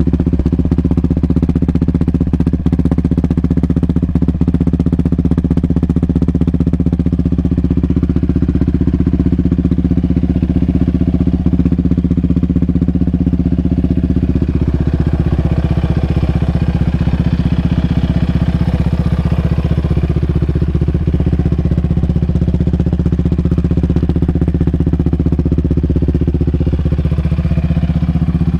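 2019 Yamaha Raptor 700R's single-cylinder four-stroke engine idling steadily through an aftermarket Monster exhaust.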